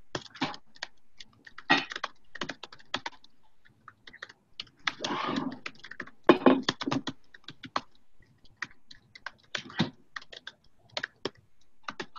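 Typing on a computer keyboard: irregular runs of keystroke clicks, with a short burst of noise about five seconds in.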